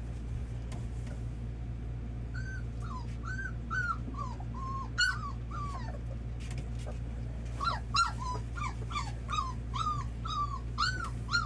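Red Labrador retriever puppies whimpering: a run of short, high-pitched whines that starts about two seconds in and comes faster and thicker after about eight seconds.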